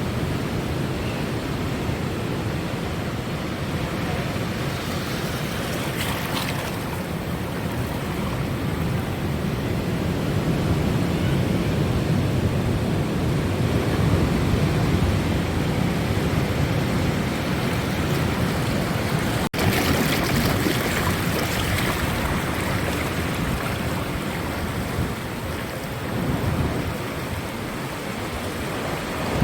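Ocean surf washing against the shore in a steady, noisy rush that swells and eases, with a momentary break about two-thirds of the way through.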